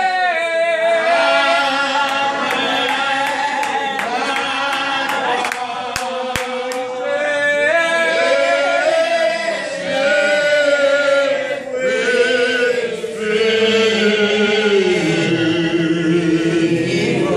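A man singing into a microphone in slow, long held notes that slide between pitches, with other voices singing along.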